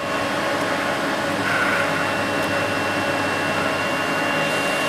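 Steady running hum of an AMC 1500H crankshaft grinder's motors between cuts, with a thin high whine joining about a second and a half in.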